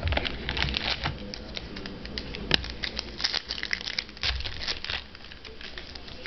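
Crinkling and tearing of a trading card pack wrapper being ripped open and handled, an irregular crackle with a sharp click about two and a half seconds in.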